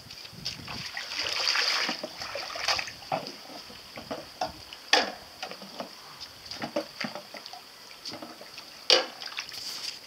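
Water splashing and sloshing in a small basin, with a run of sharp taps and knocks, the loudest about five and nine seconds in, over a steady high hiss.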